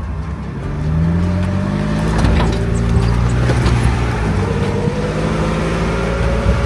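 Off-road vehicle's engine pulling through mud on a dirt track, rising in pitch about a second in and then holding steady, with a few knocks and rattles from the vehicle.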